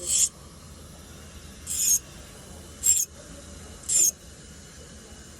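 Dental curette drawn across a wet sharpening stone in four short scraping strokes about a second apart, stopping about four seconds in, as the instrument's toe is smoothed round instead of pointed.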